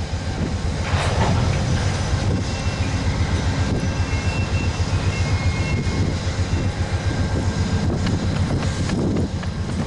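VIA Rail passenger train pulling out of the station, led by a GE P42DC diesel locomotive: a steady low engine rumble, with a regular clicking of wheels over the rail joints as the cars roll past.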